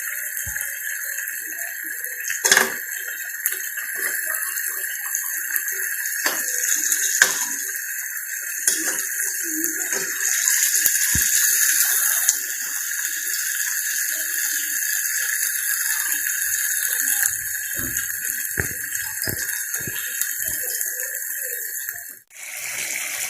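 Whole marinated chicken sizzling in butter in a lidded pan on a high gas flame: a steady frying hiss with occasional sharp pops and clicks. The hiss breaks off suddenly near the end.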